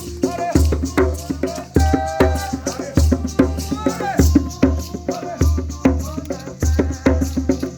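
Music: voices singing a worship song over shaken rattles and a steady low drumbeat.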